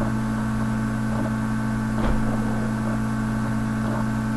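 Steady electrical hum with a buzz of many even overtones, unchanging throughout.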